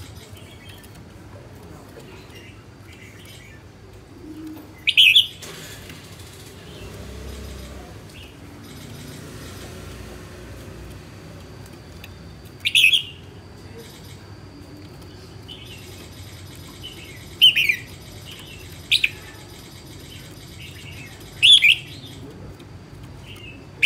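Caged red-whiskered bulbul giving about five short, loud chirps, spaced a few seconds apart.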